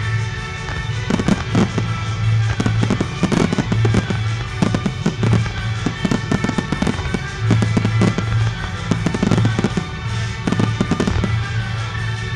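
A fireworks display going off in a dense run of bangs and pops as many shells burst at once, with music playing underneath.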